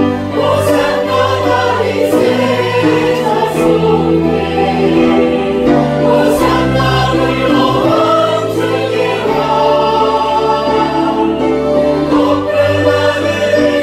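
Church congregation singing a Korean worship hymn together, with music behind the voices.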